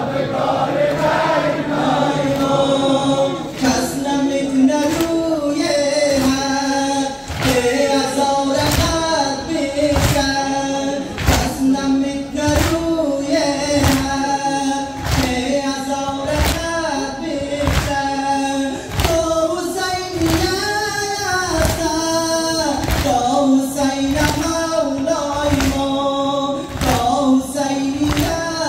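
A crowd of men chanting a Muharram lament (noha) in unison, with the sharp slaps of rhythmic chest-beating (matam) about once a second.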